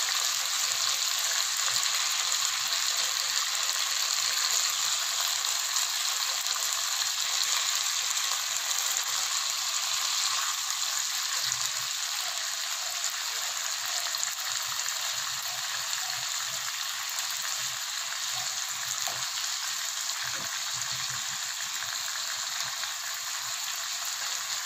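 Marinated chicken drumsticks sizzling steadily as they fry in butter and oil in a nonstick pan on medium flame.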